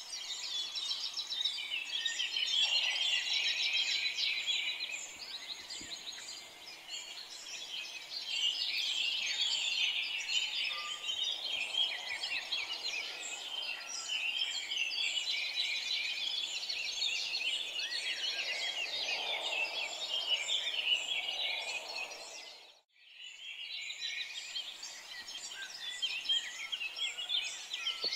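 Many small birds chirping at once, a dense chorus of overlapping short calls. The sound cuts out briefly about 23 seconds in, then the chorus resumes.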